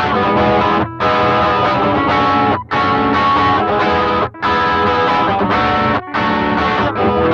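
Electric guitar, a Gibson SG, played through an Xvive T1 Golden Brownie overdrive pedal with the drive set low, giving a light crunch: chords played in phrases broken by brief stops every second and a half to two seconds. The pedal runs straight into a sound card through a cab simulator.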